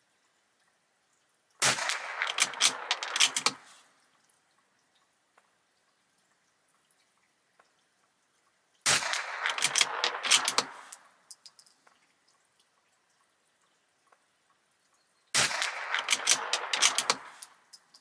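Three shots from a Bergara B14R bolt-action .22LR rimfire rifle firing Eley Biathlon ammunition, about six to seven seconds apart, each a sharp crack followed by about two seconds of clicking and rattling that dies away, typical of the bolt being worked between shots.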